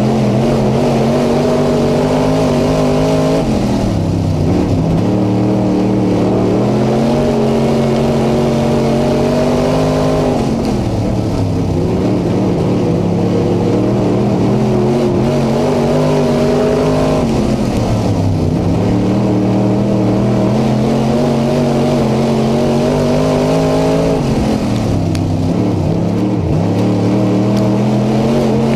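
Late model race car's V8 engine heard from inside the cockpit at racing speed. The pitch climbs and holds, then dips sharply about every seven seconds, four times: full throttle down each straight, lifting for the turns lap after lap.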